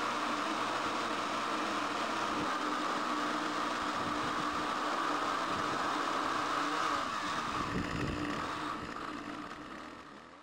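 Chainsaw engine running steadily, fading out over the last couple of seconds.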